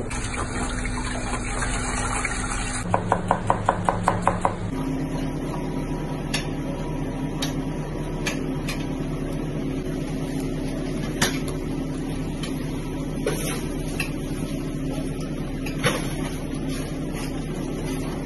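Kitchen knife tapping a plastic cutting board while scoring fish. A quick run of about eight taps comes about three seconds in, then single taps every second or two, over a steady background hum.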